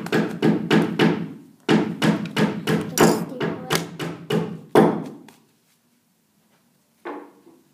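A quick run of sharp thumps and knocks, about three a second, breaking off briefly once and stopping about five seconds in, then a single further knock near the end.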